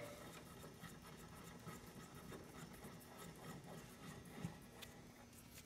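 Faint rubbing and handling noise of a steel C-clamp's screw being turned by hand to tighten it, with one small tick about four and a half seconds in.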